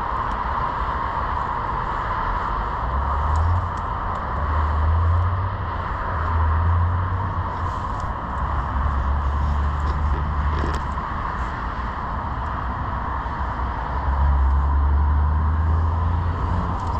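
Steady hiss of road traffic, with deep low rumbles swelling and fading several times.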